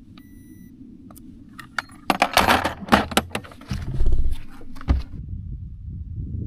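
Handling noises on a bass boat deck: a short beep near the start, scattered clicks, then a burst of rattling clatter about two seconds in, followed by low thuds.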